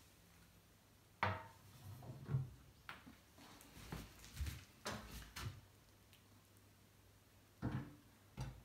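A round metal heater tray set down on a wooden floor with a ringing clank about a second in, then a series of knocks and clunks as a round kerosene heater is carried over and set onto it, with two more clunks near the end.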